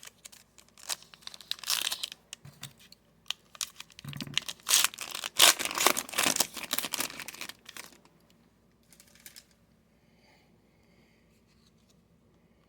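Trading-card pack wrapper being torn open and crinkled by hand, a run of rustling tears that is busiest in the middle and stops about eight seconds in.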